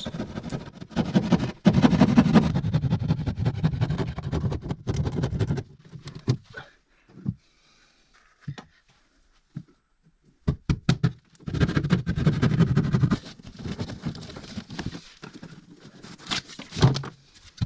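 Hand drywall saw cutting through plasterboard in rapid rasping strokes for several seconds. Then come a quieter stretch of light handling clicks, a second short burst of sawing later on, and a few sharp knocks near the end.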